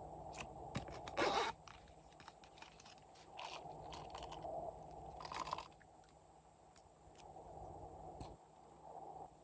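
Glossy slime being worked by hand, with many small sticky clicks and crackles and two louder crunches, about a second in and about five seconds in.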